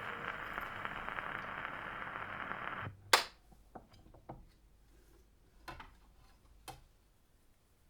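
Surface noise of a shellac 78 rpm record under a thorn needle on an acoustic gramophone after the music has ended, cut off suddenly about three seconds in as the needle leaves the record. Then a few separate sharp clicks and knocks from the gramophone being handled.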